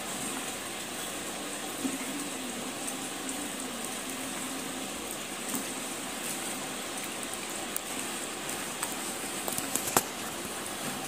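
A hand squishing and swirling wet grey clay-like paste in water in a plastic tray, giving continuous wet squelching and sloshing. A sharp click comes about ten seconds in.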